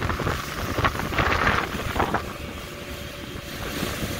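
Small motorboat underway: its engine runs under wind noise on the microphone and water splashing. The splashing is choppy for about the first two seconds, then settles into a steadier rush.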